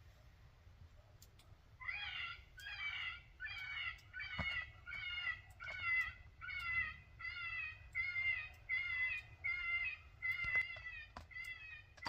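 Electronic predator call playing a recorded animal distress cry, a high wavering squall repeated about twice a second. It starts about two seconds in and stops just before the end.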